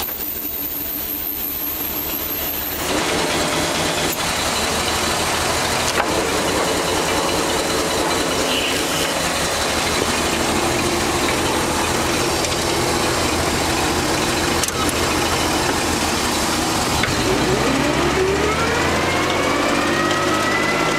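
Hyster S150A forklift engine running steadily, a little louder from about three seconds in. Near the end a whine rises and falls in pitch over it.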